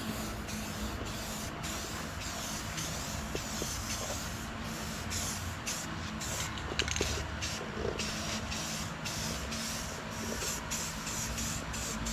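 Aerosol spray-paint can hissing in short repeated bursts as blue paint is sprayed on.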